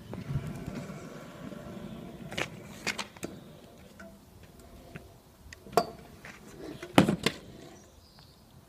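Stunt scooter wheels rolling on tarmac, then a run of sharp clacks and knocks of the scooter striking the road, the loudest about seven seconds in.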